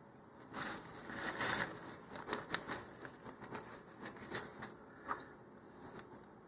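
Light handling noise as a glue bottle and a cardboard rocket body tube are put down on a cutting mat: a short rustle, then a run of small clicks and taps.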